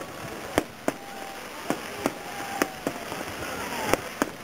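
Fireworks going off in a series of sharp bangs at irregular intervals, about seven in a few seconds.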